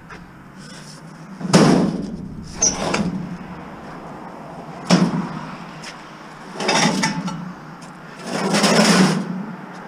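Sheet-metal cabinet of a top-loading washing machine scraping and knocking as it is tilted and shoved across concrete. There are about five scrapes and bangs, the sharpest about a second and a half in and around five seconds in.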